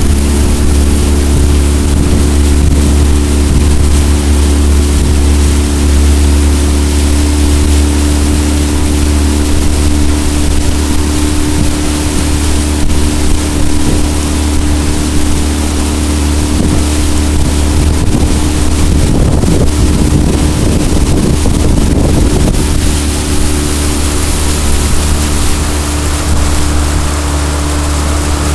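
Jon boat's outboard motor running at a steady speed, a constant loud hum, with wind noise on the microphone. The wind buffets harder for a few seconds about two-thirds of the way through.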